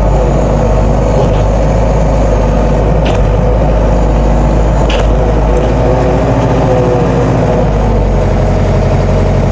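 Collins Teleshift 404 farm loader's engine running steadily under load as it pushes a heap of wheat with a grain pusher. Two short knocks come about three and five seconds in.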